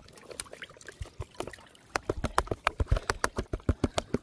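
Water and fine sand sloshing in a plastic gold pan as it is shaken to gather the gold flakes. From about two seconds in this becomes a quick, irregular run of sharp slaps and knocks, about four or five a second.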